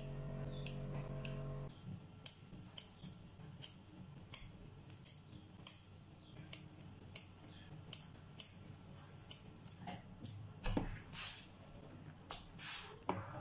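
Kitchen scissors snipping soft flour dough, a sharp click roughly every half second, after background music stops about two seconds in. Near the end, a spatula stirs and scrapes a few times in a stainless steel pot of coconut milk.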